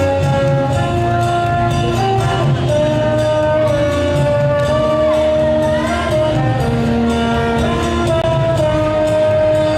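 Cha-cha-cha dance music playing loudly, a held melody over a steady beat.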